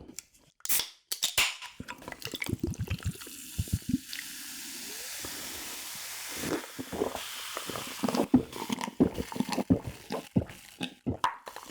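A drink poured into a glass: a sharp click near the start, then a steady pouring hiss for about three seconds, followed by a quick run of short clicks and knocks.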